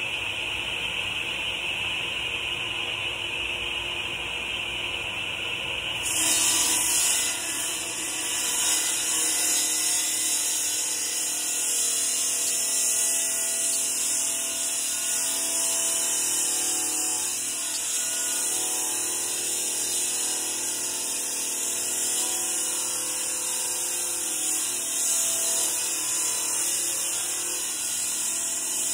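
Electric wet masonry saw cutting an 8-inch concrete block. For the first six seconds or so the blade spins freely with a steady whine. Then it bites into the block, and from there on a loud, harsh grinding hiss continues as the saw head is held down in the cut.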